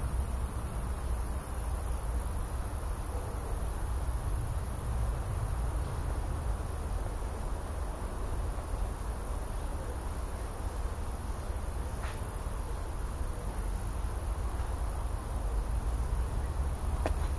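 Insects, crickets by their sound, trilling steadily and high-pitched, over a steady low rumble.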